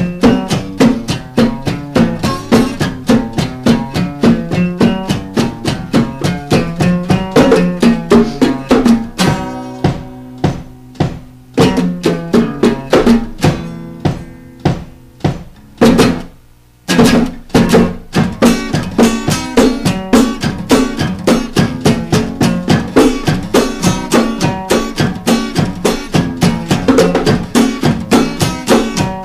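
Instrumental music: fast, rhythmic plucked guitar with light percussion. About nine seconds in it thins to sparser held notes, almost stops just before the seventeen-second mark, then the full rapid picking comes back.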